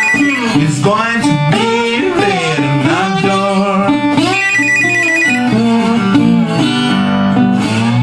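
Acoustic guitar being played, with a telephone ringing over it twice: a short high ring ending just after the start, and another of about a second roughly four seconds in.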